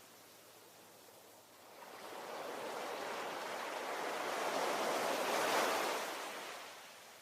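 Ocean waves: one wave swells in about a second and a half in, breaks and washes loudest around five and a half seconds, then recedes, leaving a quieter wash of surf.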